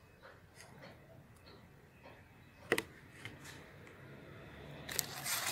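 Hands handling dry organic scraps and plastic tubs: scattered light ticks, one sharp click midway, and a crinkly rustle near the end as dry material is scooped.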